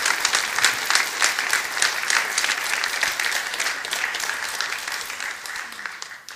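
Audience applauding, a dense patter of many hands clapping that slowly dies away over the last couple of seconds.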